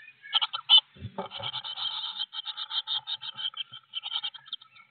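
Nearly fledged blue tit chicks begging to a parent at the nest, a rapid, continuous string of short high calls. A low thump and rustle about a second in as the adult moves at the nest.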